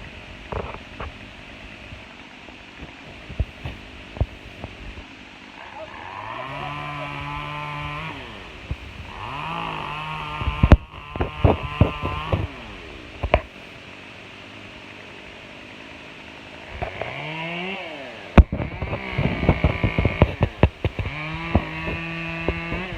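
Chainsaw revved up in four bursts, each time rising in pitch, holding steady, then dropping back. Sharp knocks come between the bursts, the two loudest about eleven and eighteen seconds in.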